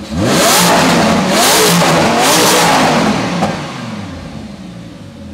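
Lamborghini Huracan's 5.2-litre V10 exhaust revved hard three times in quick succession, the engine pitch sweeping up with each blip. It then drops back toward idle about three and a half seconds in.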